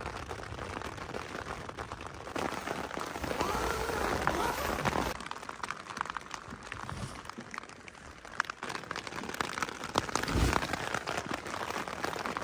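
Rain falling steadily, with many small drops ticking on a surface.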